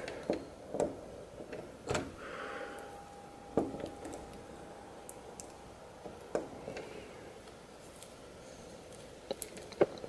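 Scattered clicks and light knocks of a 3D-printed plastic lock pick being worked in a door lock, the sharpest knock about a third of the way in and another near the end.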